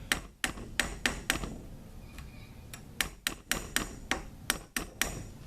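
Light hammer taps driving a tapered cross pin into a cut-down A2 front sight post: a run of quick sharp taps, a pause of about a second and a half, then another run of taps.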